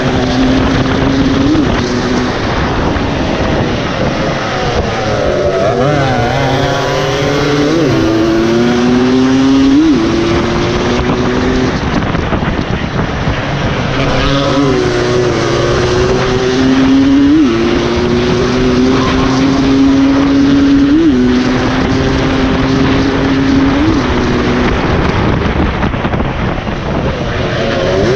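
Dirt bike engine racing hard, heard from on board: the engine note climbs under throttle and drops sharply at each upshift, several times over, with wavering, falling revs in between as it slows for corners.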